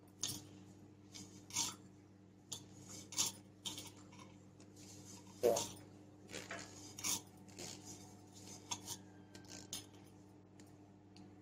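Kitchen utensils and dishes clinking and clattering as they are handled: a dozen or so sharp clinks and knocks at irregular intervals, the loudest about five and a half seconds in.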